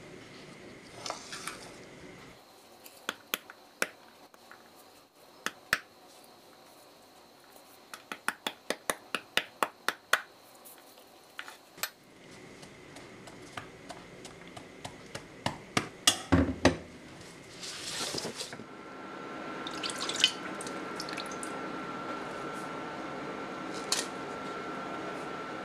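Kitchen utensils clinking and tapping: a series of sharp clicks, with a quick regular run of taps in the middle. About two-thirds of the way through, a steady hum starts and carries on under the clinks.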